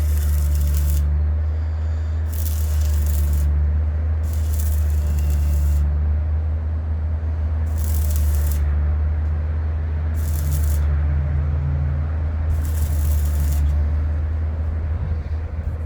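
Arc welding in short bursts: about six spells of hissing, crackling arc, each up to a second or so long, over a steady low machine hum that shifts slightly while each weld runs.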